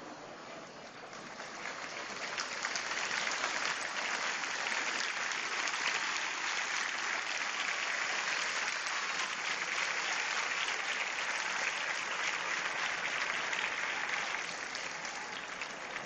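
A large street crowd applauding, a dense mass of clapping that swells about two seconds in, holds steady, then eases off near the end.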